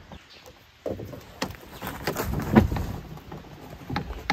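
A canoe being handled as it comes off the shoulders: a series of knocks, clatters and scraping rustles of the hull, starting about a second in and busiest in the middle, with a few sharp knocks near the end.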